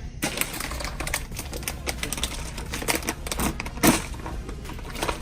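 Peanut M&Ms poured into a bulk candy vending machine's canister: a dense, irregular clatter of hard candy pieces hitting the container and each other, with one louder knock about four seconds in.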